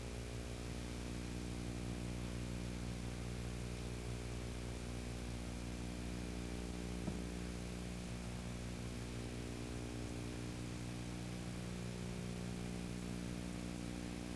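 Steady electrical mains hum with a stack of overtones over a constant hiss. One faint click sounds about seven seconds in.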